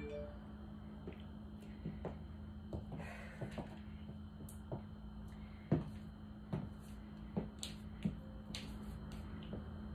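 About eight irregular sharp taps and knocks, the loudest about six seconds in, as high-heeled shoes step on a hardwood floor, over a steady low room hum.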